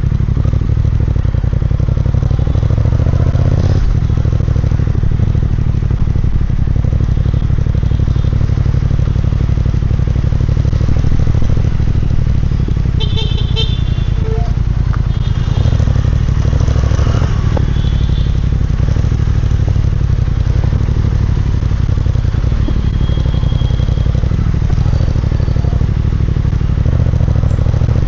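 Triumph Speed Twin 1200's 1200 cc parallel-twin engine running steadily through its exhaust. A few short high-pitched beeps sound about halfway through.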